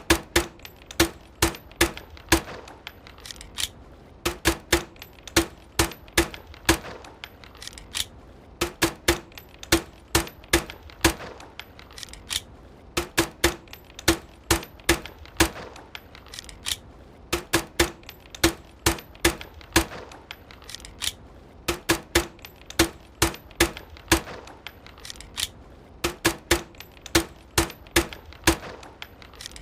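Homemade suppressed pistol firing: quick runs of sharp, muffled cracks with no loud bang. The same pattern of shots comes back about every four and a half seconds.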